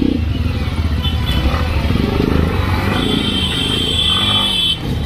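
Yamaha MT-15's single-cylinder engine running at low speed in crawling traffic, with a high-pitched vehicle horn sounding for nearly two seconds starting about three seconds in.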